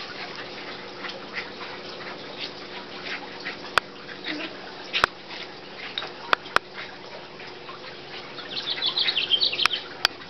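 Puppies making high, squeaky whimpers and yips, with a denser run of them near the end, amid light scratching and a few sharp clicks.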